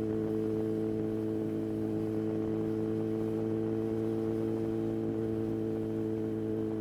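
Yamaha XJR1300 (RP17J) air-cooled inline-four engine running at a steady, unchanging engine speed, an even low hum.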